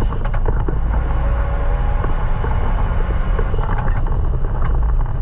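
Renault Mégane Renault Sport 225's turbocharged four-cylinder engine running under a steady, heavy low rumble, with scattered short ticks and clicks over it.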